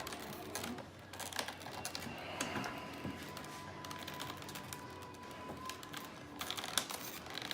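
Light plastic clicks and rattles from squeezing the tabs and handling the plastic parts of a pachinko machine during disassembly, with a quick cluster of clicks near the end.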